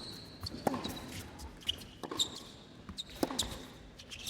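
Tennis shoes squeaking on a hard court: several short, sharp squeaks rising in pitch, about one a second.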